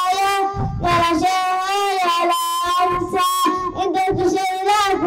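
A young boy singing solo into a microphone, holding long notes with a wavering vibrato.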